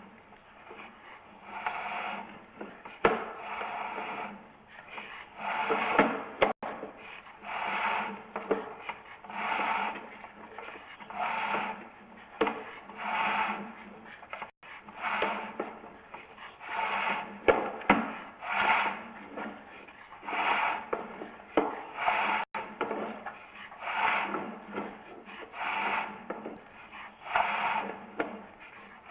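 Sewer inspection camera and its push cable rubbing and scraping through a pipe in rhythmic strokes, about one every one and a half to two seconds, with a few sharp clicks.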